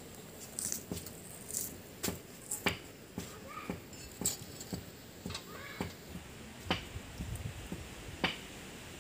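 Scattered sharp clicks and taps of a knife blade as garlic and onion are peeled by hand, coming every half second to a second.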